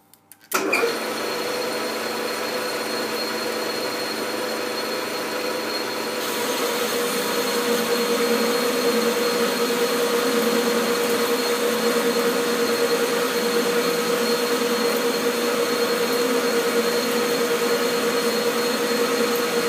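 Metal lathe switching on about half a second in and running with a steady whine. From about six seconds in it gets louder and fuller as the tool cuts a taper on the bar, fed by hand with the compound slide.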